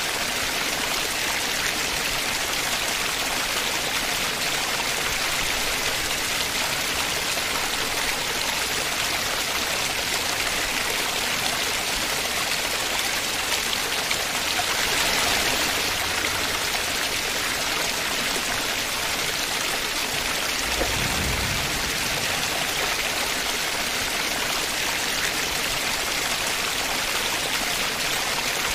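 Steady rushing of monsoon floodwater: a swollen, muddy river in spate and the Gira waterfall pouring over its rock ledge in full flood. A brief low thump about 21 seconds in.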